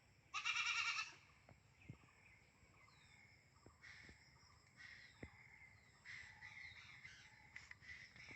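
A goat kid bleating once, high-pitched and quavering, for well under a second; afterwards only faint clicks and a few thin bird chirps.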